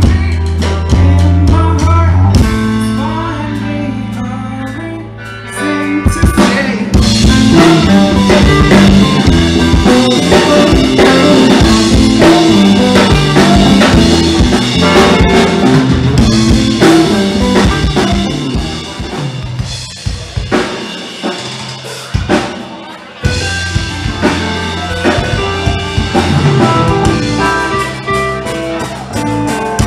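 Live rock band playing electric guitar, bass guitar and drum kit. A held chord rings and fades at first, and the full band with drums comes in about six seconds in. The low end drops out for a few seconds around twenty seconds in, then the band comes back in full.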